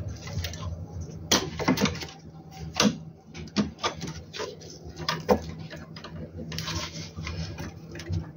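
Irregular clicks, knocks and a brief scrape as a circuit board and its cables are handled and fitted into an inverter's casing, over a steady low hum.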